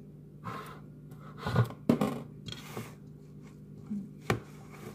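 A few light knocks and a short scrape of a metal can against a bowl as condensed cream of mushroom soup is poured out of the can, over a faint steady hum.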